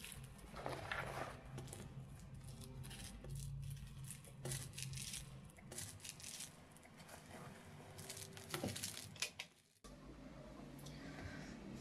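Faint rustling, crinkling and light clicks of hands handling a small plastic bag and small objects on a tabletop, over a low steady hum. The sound drops out for a moment near the end.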